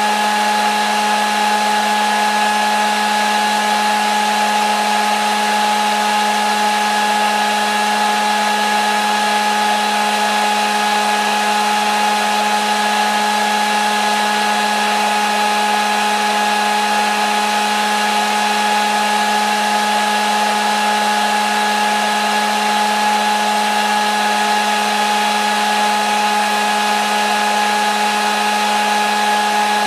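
Hair dryer running steadily: an unchanging motor hum with a rush of blown air.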